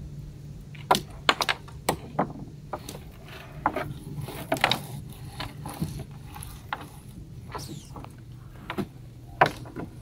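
Irregular sharp clicks and knocks as a crab net is hauled in over the side of an aluminium boat, its floats knocking on the hull and a plastic tub, over a steady low hum.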